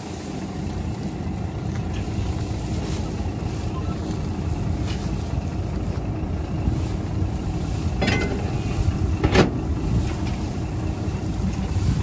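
Massey Ferguson 241 tractor's three-cylinder diesel engine running steadily, with two short knocks near the end.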